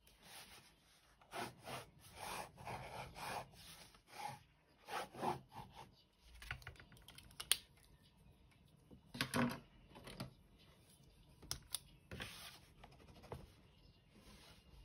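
Pen nib scratching across textured sketchbook paper in short, irregular strokes, with a few sharp clicks between them.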